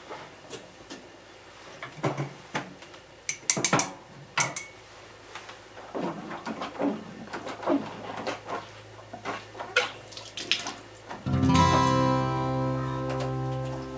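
Scattered clicks, knocks and clinks of dishes and utensils being handled at a kitchen sink. About eleven seconds in, louder background music with plucked guitar-like notes begins.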